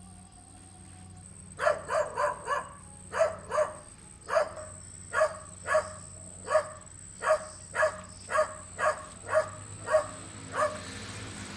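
A dog barking repeatedly off-screen: a quick run of four sharp barks about two seconds in, then single barks roughly one to two a second. A thin, steady high-pitched whine runs behind until near the end.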